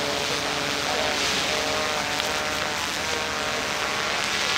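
A large fire burning a wooden boat: a steady rushing hiss of flames with faint crackling.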